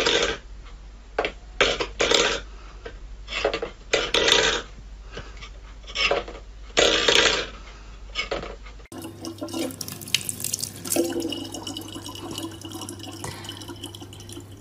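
A steel pet bowl scraped and knocked about on a wooden floor, in short separate clatters about once a second. About nine seconds in this gives way to a thin stream of water running steadily from a tap into a plastic bottle.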